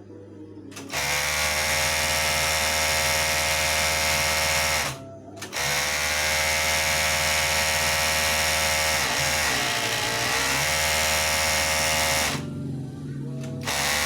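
Overlock (serger) sewing machine running at speed, its motor and needles whirring steadily as it trims and stitches a fabric strip. It starts about a second in, stops briefly near five seconds, and drops away shortly before the end before starting again.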